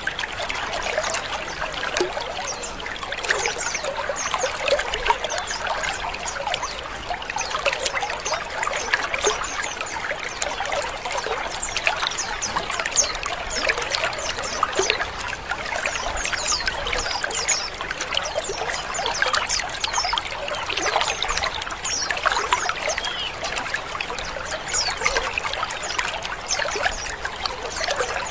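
A colony of many white-eyes (pleci) chattering together: a dense, unbroken mass of short, high chirps and trills from many birds at once.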